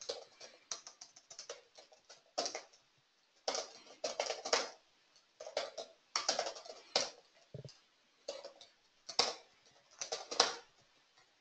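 Typing on a computer keyboard: irregular bursts of keystrokes with short pauses between them.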